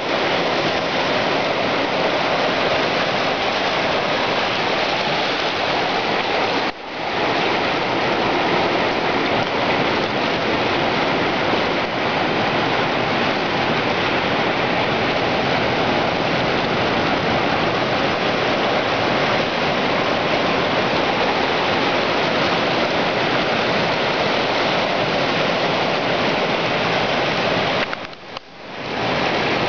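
Ocean surf washing over and between coastal rocks into a rocky tide pool: a steady, dense rush of churning seawater. It cuts out sharply for a moment about seven seconds in and again near the end.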